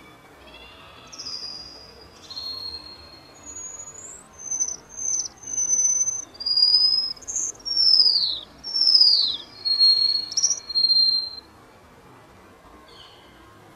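A songbird singing a string of clear whistled notes, some held level and some sliding down, growing louder through the middle and stopping abruptly near the end.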